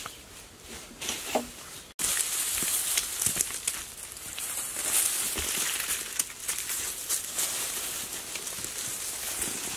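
Hands scooping and scattering loose dry soil over dry grass thatch: a dense rustling and crackling made of many small gritty clicks, quieter at first and louder from about two seconds in.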